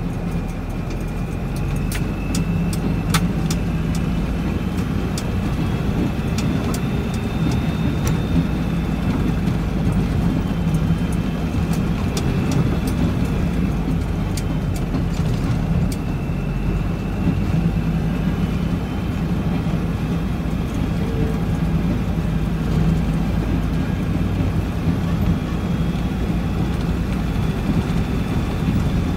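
Truck engine and rolling noise heard from inside the cab while driving slowly over a rough gravel haul road: a steady low rumble with scattered sharp clicks and rattles.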